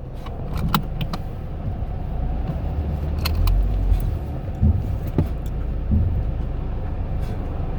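Car being driven, heard from inside the cabin: steady low road rumble with a handful of sharp clicks and knocks over bumps, on a front end that was clunking and whose shock feels loose to the driver.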